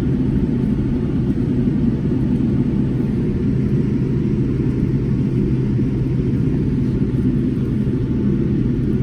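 Steady low rumble of a Boeing 787-10's engines idling, heard inside the passenger cabin, while the airliner waits lined up on the runway before its takeoff run.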